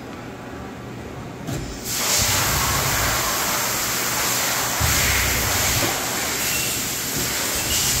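Fadal VMC4020 vertical machining center running: a loud, steady hiss starts about two seconds in and holds, with short low rumbles as the spindle head travels.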